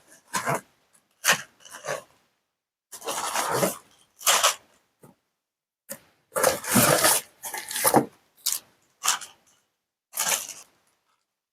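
Toy packaging being unwrapped and handled: crinkling, tearing and rustling in a string of short separate bursts with brief quiet gaps between them.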